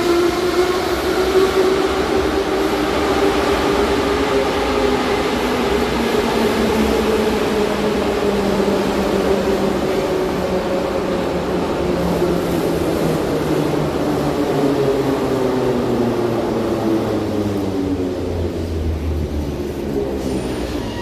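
Moscow Metro 81-717/714 train pulling into the platform and braking to a stop. The traction motors' whine glides steadily down in pitch as it slows, over the rumble of the wheels.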